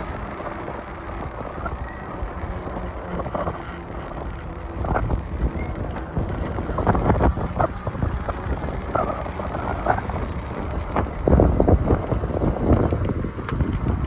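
Wind buffeting the microphone: a steady low rumble broken by irregular louder gusts, the strongest near the middle and about three-quarters of the way through.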